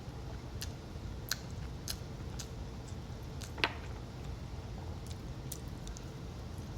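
Close-miked chewing of sushi: scattered small wet mouth clicks and ticks, with one sharper click about three and a half seconds in, over a steady low hum.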